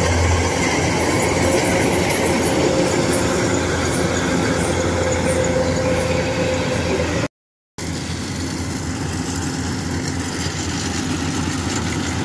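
Rice combine harvesters running at work in the field, a steady drone of engine and threshing machinery with a low hum. The sound cuts out for a split second about seven seconds in, then the steady machine noise goes on.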